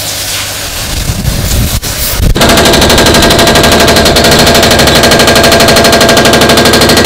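Excavator-mounted hydraulic breaker hammering concrete in a loud, rapid, even stream of blows, starting about two and a half seconds in. Before it, a lower, uneven machine rumble.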